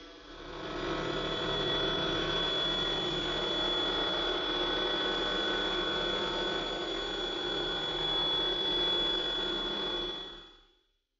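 Optimum F310 TC CNC vertical milling machine running, a steady mechanical noise with a thin high whine held throughout. It builds up in the first second and fades out near the end.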